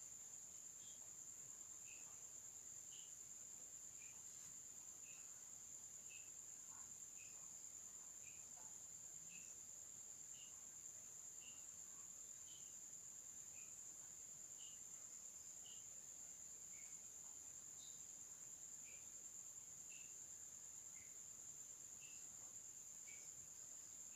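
Faint night insects: a steady high-pitched trill with a short, higher chirp about once a second.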